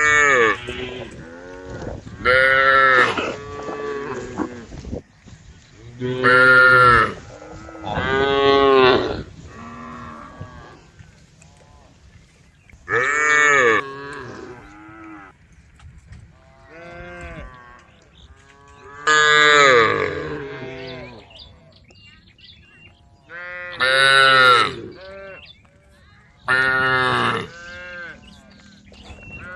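A herd of cattle mooing: one call after another every two or three seconds, each about a second long with a pitch that rises and then falls, some loud and close, others fainter and overlapping.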